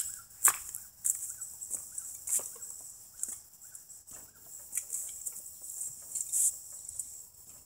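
Scattered metal clinks and taps of an adjustable wrench on the bolts holding the fuel tank to a garden tractor's single-cylinder engine, the sharpest about half a second in. Faint short chirps repeat in the background.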